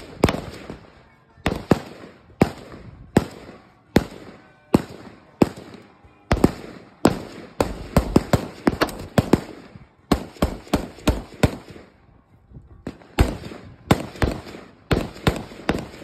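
Gunfire at a shooting range: many sharp shots at uneven spacing, often two or three in quick succession, with a short lull about three-quarters of the way through. The shots are most likely from more than one firearm.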